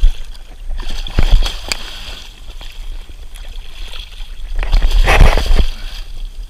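A tarpon thrashing in the water alongside a boat as it is grabbed, splashing hard: a few sharp splashes in the first two seconds and a longer, louder burst of splashing about five seconds in.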